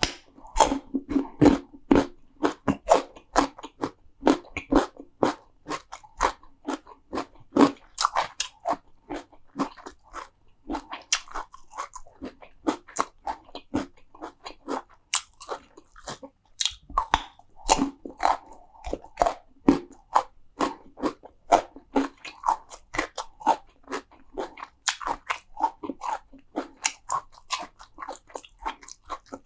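Close-miked eating of crunchy food: bites and chewing with a dense run of sharp crunches, several a second, without a break.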